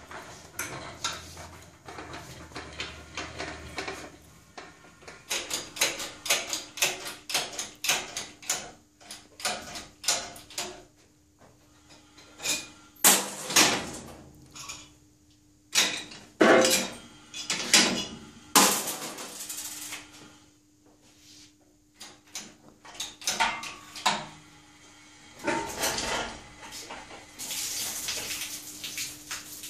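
Metal clinks and clanks of hand tools and engine hardware as an engine is unbolted from a dyno stand and handled on a hoist. A run of quick, evenly spaced clicks comes several seconds in, then scattered louder knocks, with a hiss near the end.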